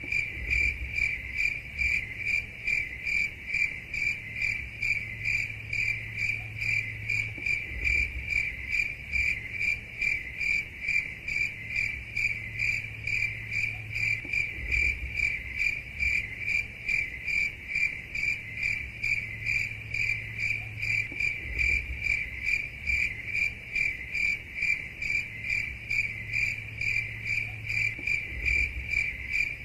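Cricket chirping steadily in an even, high-pitched rhythm of about two chirps a second, with a faint low hum underneath.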